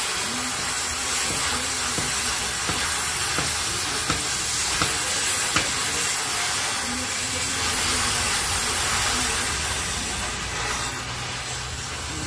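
Oxy-fuel gas cutting torch hissing steadily as it burns through the steel of a truck leaf spring's broken centre bolt, with a few sharp pops about four to six seconds in. The hiss eases a little near the end as the flame is turned down.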